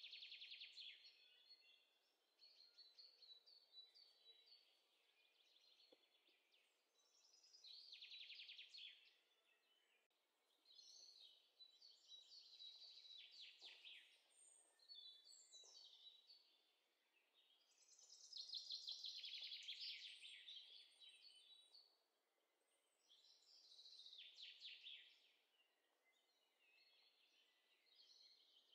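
Faint birdsong: short, rapid trilling phrases that recur every few seconds. This is a background birdsong ambience track.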